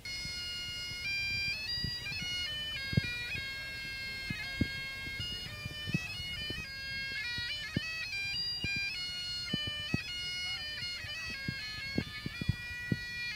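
Bagpipes playing a tune, the melody stepping from note to note over the steady drones. Occasional short low thumps sound underneath.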